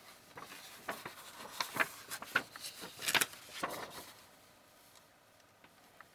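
Close handling noises: rustling and scraping with sharp clicks and taps, busiest through the first four seconds, then fading to a few faint ticks.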